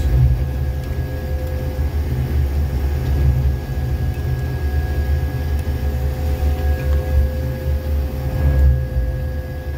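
Jackson 6700 tamper's diesel engine running steadily as a deep rumble, with a steady whine on top, while the work head sweeps mud out of the tie cribs.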